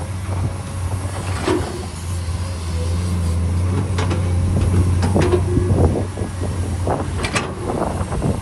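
Komatsu PC210 hydraulic excavator's diesel engine running steadily under load as the bucket works through a pile of soil and rock, a little louder through the middle. Scattered knocks and clatters of stones and the steel bucket are heard on top of it.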